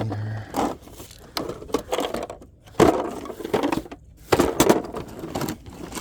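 A box being rummaged through by hand: an irregular series of knocks, cracks and crinkling rustles as items inside are moved.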